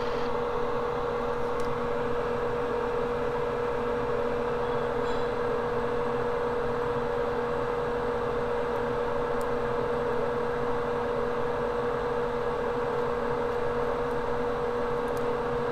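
Steady hum of a small fan-driven machine with a constant mid-pitched tone, unchanging throughout.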